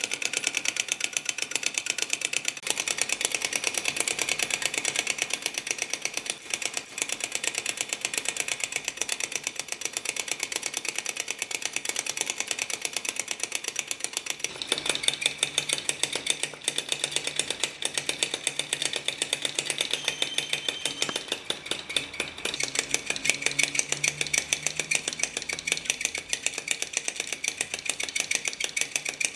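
Small metal Flamelicker (vacuum) model engine running at speed on its spirit-lamp flame: a rapid, even mechanical clicking that runs without a break.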